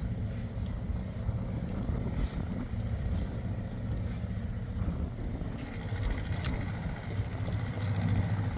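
A motor running steadily with a low, even rumble, like a vehicle engine.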